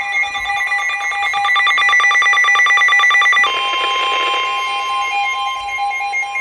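Emergency alert tones for a severe thunderstorm warning: a fast-pulsing electronic alarm tone for about three and a half seconds, then a steady single tone with a broken lower tone under it.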